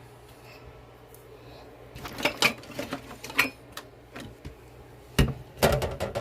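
Kitchen clatter: clicks and knocks of bowls and utensils being handled, in two spells about two seconds in and about five seconds in, over a faint low hum.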